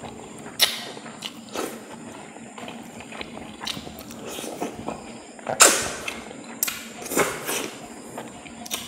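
Close-up eating sounds of someone eating fish curry: irregular wet mouth smacks and chewing, the loudest smack about five and a half seconds in.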